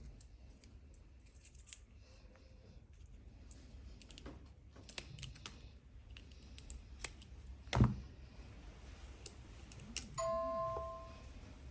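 Scattered small clicks and taps of things being handled, a single thump a little before eight seconds in, then a short electronic chime of two steady notes sounding together about ten seconds in.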